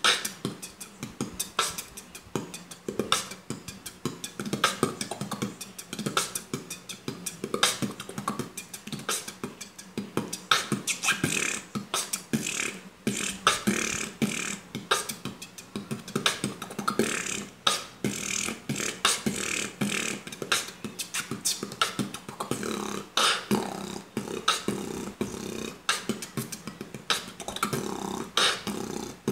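Solo beatboxing by one person: a fast, dense run of sharp percussive mouth sounds imitating drum hits, mixed with short voiced tones.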